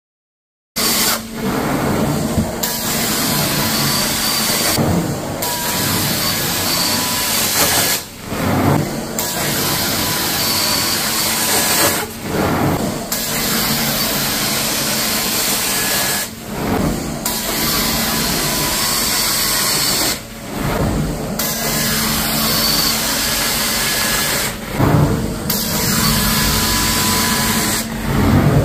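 Carpet extraction wand sucking air and water through the carpet under strong vacuum with a steady machine hum, worked in regular passes about every four seconds, each pass broken by a brief lull. The sound starts abruptly just under a second in.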